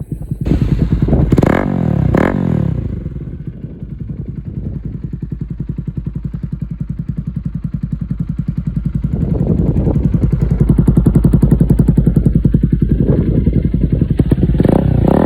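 Bajaj Pulsar NS 200's single-cylinder engine through an Akrapovič exhaust with the dB killer removed, running loud. It is blipped twice in quick succession near the start, then idles with a fast, even popping beat, and is revved up again with more blips in the last few seconds.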